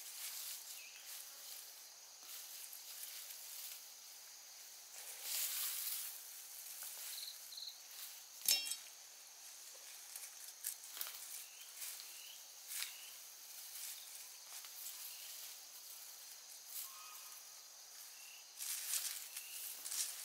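Peanut plants being pulled up by hand and handled, with bursts of rustling from the leafy stems and soil, scattered small clicks, and one sharp click about eight seconds in. A faint steady insect hum runs underneath.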